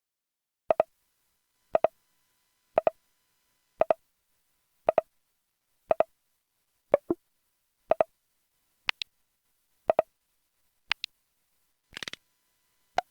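System sound effects from the EV-F200 "Bubi Bubi F4" feature phone, synthesised on its Qualcomm CMX sound chip. Short double-blip electronic beeps come about once a second, about a dozen in all. Most share the same mid pitch, a few are higher, and a denser, busier blip comes near the end.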